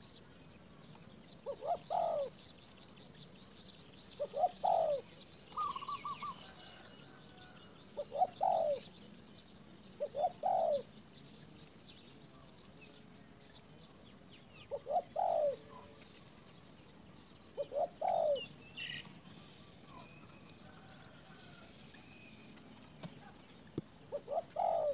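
A bird calling over and over, a short call with a quick lead note repeated about every two to three seconds, with a few faint higher chirps in between.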